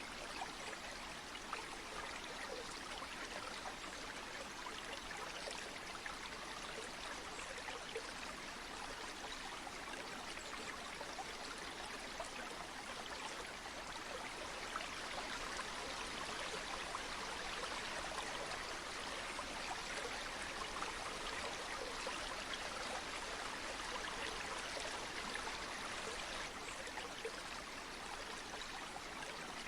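River water flowing steadily: an even, unbroken rushing hiss with a fine splashing texture.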